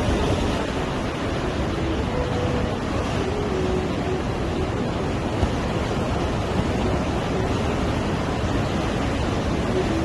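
Sea surf washing on a beach: a steady, even rush with wind.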